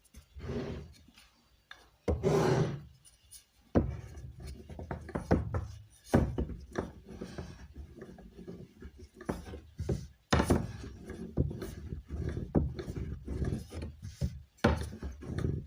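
A knife cutting noodle dough on a wooden board, giving a run of irregular chopping knocks, several a second. It starts about four seconds in, after a couple of rubbing swishes of dough or flour being moved across the board.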